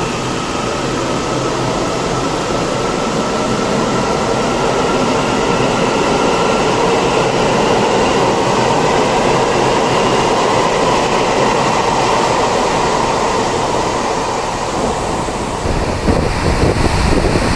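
Taiwan Railways electric multiple-unit commuter train running at the platform, a faint whine from its traction equipment over the steady hiss of heavy rain. Near the end, wind buffets the microphone.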